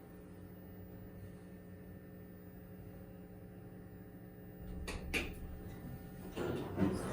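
Steady hum with several fixed tones inside a ThyssenKrupp hydraulic elevator. Two sharp clicks come about five seconds in, and a louder rush of mechanical noise builds near the end.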